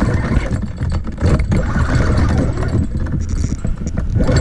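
Rough, irregular rumbling and scraping of clothing rubbing against a body-worn camera's microphone, mixed with wind buffeting it, as a fishing reel is cranked during a fight with a big fish.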